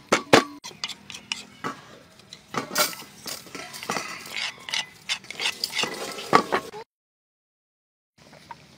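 Wooden pestle pounding chilies in a mortar, a couple of sharp knocks at the start, then irregular clinks and scrapes as the crushed chilies are knocked and scraped out into a stainless steel bowl. The sound cuts out completely for about a second near the end.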